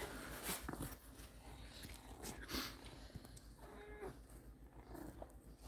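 A British Shorthair cat giving one short, faint call about four seconds in, amid rustling of towels and bedding.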